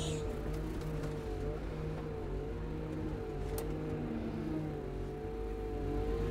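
Cat 938M wheel loader with its hystat (hydrostatic) drive running in ice mode on a loaded carry run: a steady engine note with a whine that drifts gently up and down as the machine eases its speed, growing a little louder near the end.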